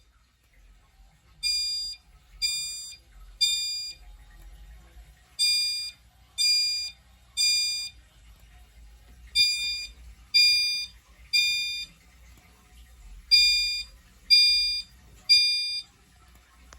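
Fire alarm notification appliances sounding in the temporal-three evacuation pattern: four groups of three short pitched tones, with a pause of under two seconds between groups.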